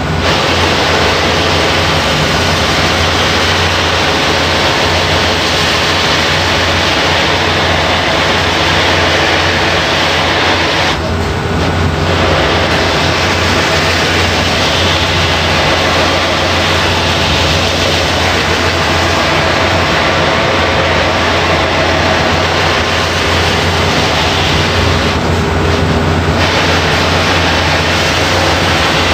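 Stahl Maxi CNC robotic buffing machine running: its spinning cloth buffing wheel and drive motor make a steady loud hiss over a low hum while a femoral knee implant is polished against the wheel. The hiss thins briefly twice, about 11 and 25 seconds in.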